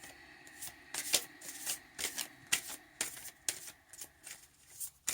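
Tarot cards being shuffled by hand: an irregular run of crisp card snaps and riffles, about two to three a second.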